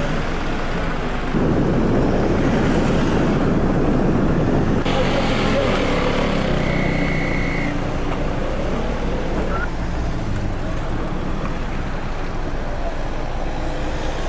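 Police patrol vehicles and motorcycles running in slow street traffic: engine and road noise with voices in the background. About five seconds in, the sound changes abruptly. A short, high, steady beep comes near the middle.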